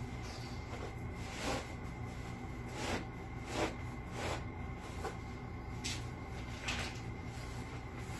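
A small woven rug being rolled up by hand on a concrete floor: about eight brief rustles and soft knocks at irregular intervals, over a steady low hum.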